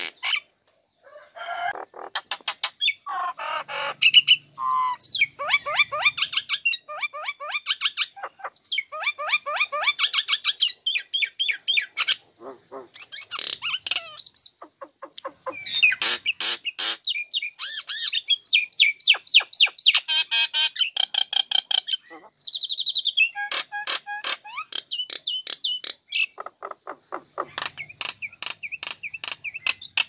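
A female common myna singing a long, varied run of rapid clicking chatter, trills and whistled notes, with short pauses between phrases. This is the vigorous singing that keepers call "gacor".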